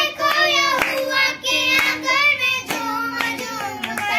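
Two boys singing a Hindi Christian devotional song (masihi geet), clapping their hands along every second or so.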